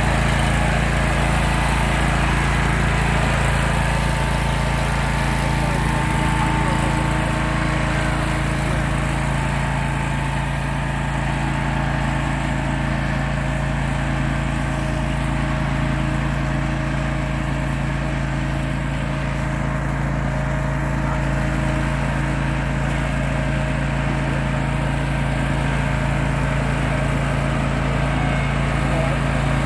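Simplicity riding lawn tractor's engine running at a steady speed as the tractor drives across grass.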